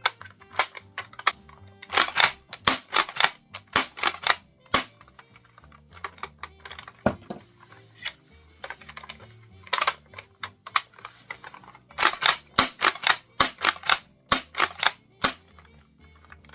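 Sharp plastic-and-metal clicks and clacks of a CYMA M870 spring-powered airsoft shotgun being handled, in two dense runs of rapid clicks with single clicks between, over quiet background music.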